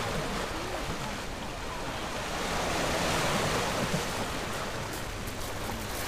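Small Black Sea waves lapping on a pebble shore, one wash swelling about three seconds in, with some wind on the microphone.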